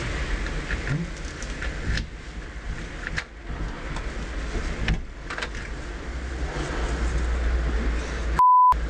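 Urban street ambience: a steady low rumble of traffic with a few small clicks, changing abruptly a few times. Near the end a single short pure electronic beep sounds while the background cuts out.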